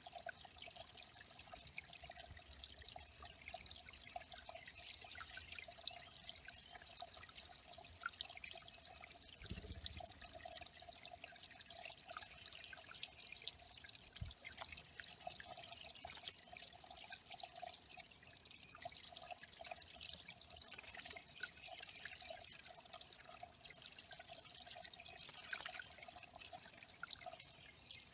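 Faint, steady trickling and dripping of water running into a small bird pond.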